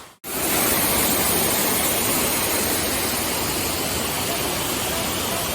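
Waterfall: a steady rush of water falling over rocks, starting abruptly just after a brief gap.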